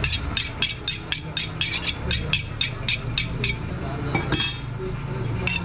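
A butcher's knife honed on a sharpening steel: quick, even ringing strokes of steel on steel, about four a second, then a pause and two slower strokes near the end.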